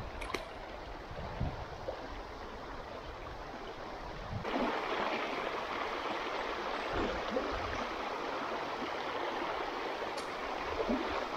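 Swift river current rushing steadily over rocks, a continuous rush of water that suddenly turns louder and brighter about four seconds in.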